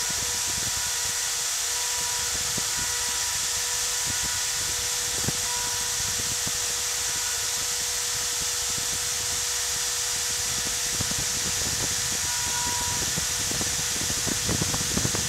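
CNC router running: the spindle gives a steady high whine while the axis motors add short higher tones that come and go as the machine moves. Clicks and crackles of the bit cutting grow near the end.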